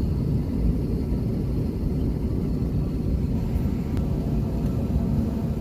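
Airliner cabin noise: a steady low rumble of engines and airflow inside the passenger cabin.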